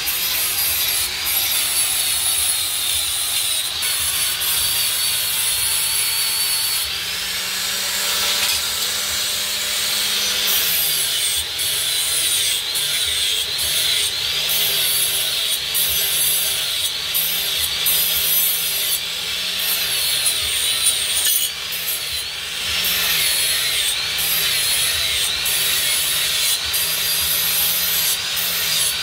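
Handheld angle grinder running and grinding steel knife blades, a harsh scraping hiss of the abrasive disc on the metal. The motor's whine dips in pitch each time the disc bites into the blade and rises again as it eases off, several times in a row around the middle.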